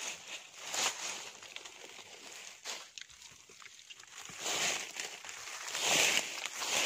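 Rustling and crunching of dry leaf litter and soil, in several irregular bursts, the loudest just past halfway and about six seconds in.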